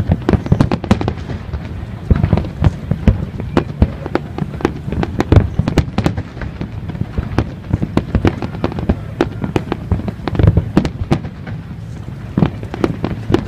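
Fireworks going off: a dense, irregular run of sharp pops and bangs, several a second, over a low rumble of booms.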